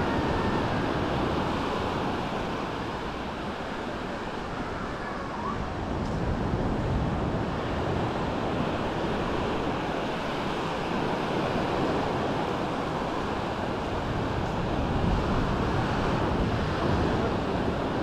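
Small waves washing onto a sandy beach, a steady surf noise that swells and eases gently, with wind buffeting the microphone.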